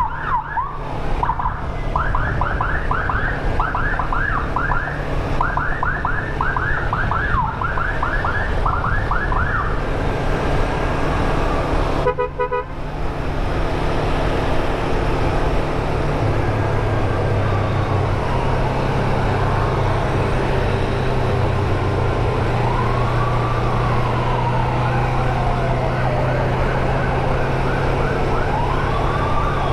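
Emergency siren sounding in a fast yelp for about the first ten seconds, then, after a brief break, a slow wail that rises and falls about every six seconds. Underneath is the steady running of a Yamaha MT25 motorcycle's engine.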